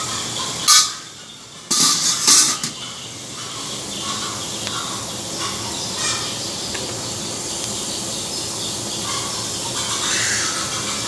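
A few loud clatters in the first three seconds, then water boiling hard in a saucepan of chestnuts: a steady bubbling.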